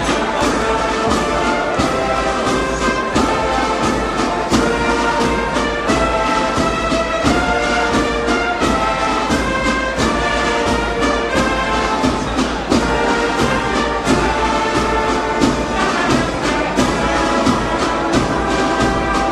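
Brass band playing a slow processional march, with held brass notes over a steady drum beat.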